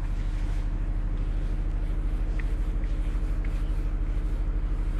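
A steady low hum with a fast, even pulsing, under a faint rubbing as a whiteboard is wiped clean with a duster.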